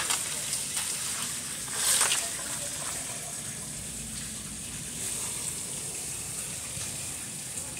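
Ice water sloshing in a cooler of iced fish, with one louder splash about two seconds in, over a steady hiss.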